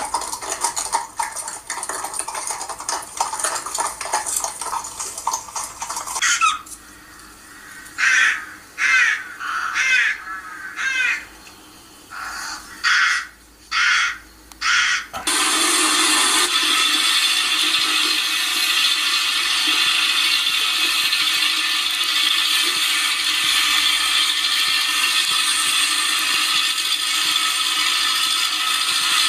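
Countryside sound-effect ambience: a series of about eight harsh crow caws, each separate and short, followed by a steady rushing noise that starts abruptly about halfway through and holds an even level.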